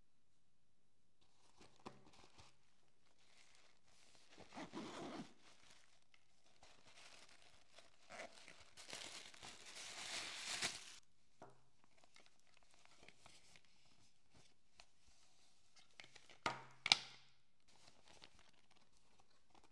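Tissue paper rustling and crinkling as hands dig into it inside a zippered cosmetic pouch, loudest in a long crackly stretch about halfway through. A couple of sharp clicks sound near the end.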